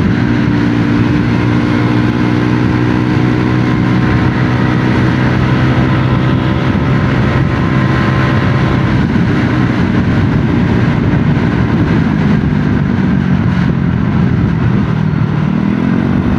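Small automatic (belt-drive) scooter engine running at a steady cruise, under a constant rush of wind on the microphone. About twelve seconds in the engine note drops, then climbs again near the end as the throttle opens.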